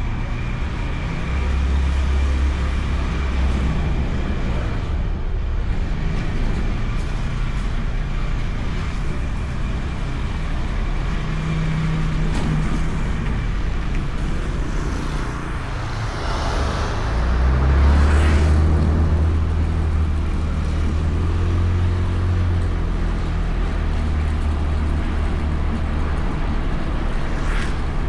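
Honda Beat scooter riding on the road, its engine running under steady road and wind rumble picked up by a bike-mounted action camera, with other traffic around. The rumble swells louder for a few seconds past the middle.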